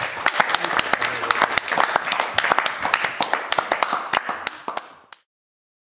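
Audience applauding, the clapping fading out over the last couple of seconds.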